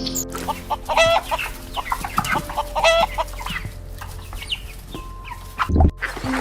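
Chickens clucking in a run of short calls, with two longer calls about a second and three seconds in, and a brief low thump shortly before the end.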